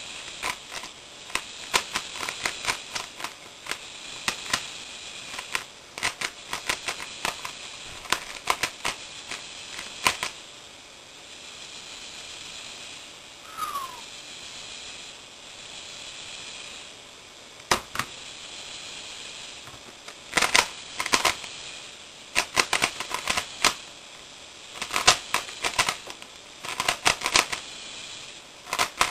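3x3x3 Rubik's Cube being turned quickly by hand: rapid runs of sharp plastic clicks and clacks from the layers snapping into place, with a quieter stretch of several seconds in the middle.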